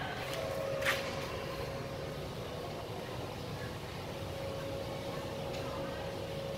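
Steady low background rumble with a faint steady hum, and a single sharp click about a second in.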